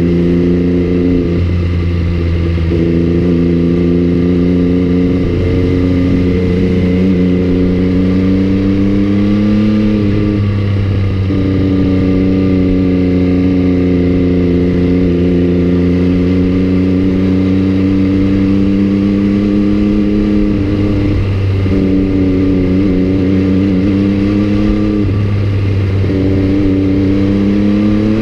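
MV Agusta Brutale 800's three-cylinder engine running at a steady cruise with little wind noise. The note drifts gently in pitch, breaks briefly about four times, and starts to rise near the end.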